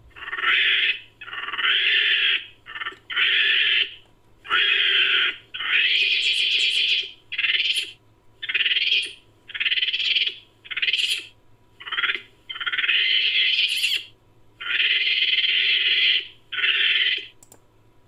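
Home-made sound effect of Nicobar long-tailed macaque calls: a rapid series of about fifteen short, shrill calls, some lasting about a second, separated by brief gaps.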